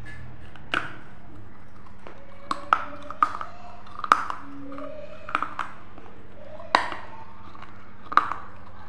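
Crisp bites and crunches of a dry snack being bitten and chewed close to the microphone: about nine sharp cracks, unevenly spaced, some in quick pairs.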